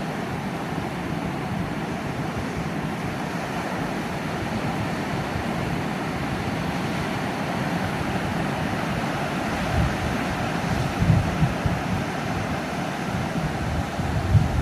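Sea surf washing steadily against the shore. Wind buffets the microphone in gusts from about two-thirds of the way through.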